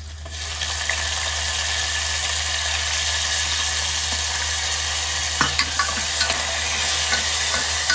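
Chopped tomatoes sizzling as they go into hot ghee in a pressure cooker: a loud, steady hiss that swells up within the first half second. From about five seconds in, a few clicks of a spoon against the pot as the tomatoes are stirred.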